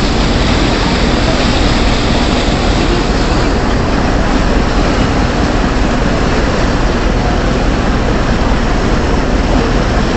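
A boat's engine running steadily under a loud, even rushing noise, with no change in level.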